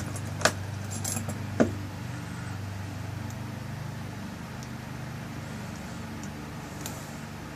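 Small metal clicks and clinks of lock parts being handled while a tailpiece is screwed onto a lock cylinder. There are three sharp clicks in the first two seconds and a few faint ticks near the end, over a steady low hum.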